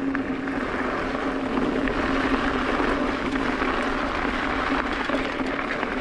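2020 Trek Fuel EX 5 mountain bike rolling along a dirt singletrack at about 10 mph: steady tyre and trail noise mixed with wind on the microphone, with a steady low hum throughout.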